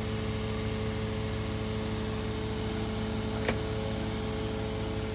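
Steady hum of an idling engine, with one sharp click about three and a half seconds in.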